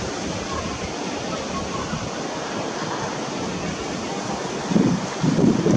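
Steady rushing wind noise on the microphone, with two louder low bursts near the end.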